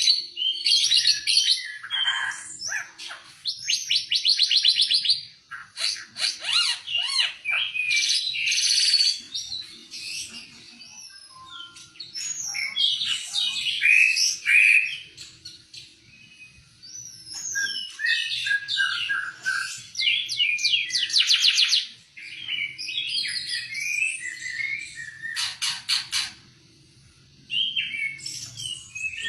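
A songbird of the kind sold as 'ara mata merah' singing a long, varied song of chirps, rapid trills and whistles, with a brief pause near the end.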